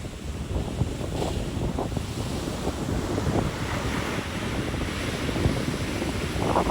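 Sea waves breaking and washing up a beach, a steady rush, with wind buffeting the microphone as a fluttering low rumble.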